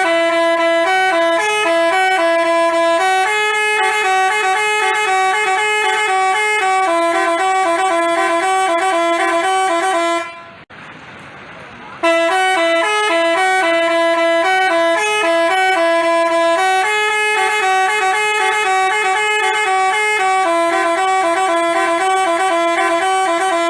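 Basuri telolet bus horn playing a melody of stepped tones. It breaks off about ten seconds in and starts the tune over about a second and a half later.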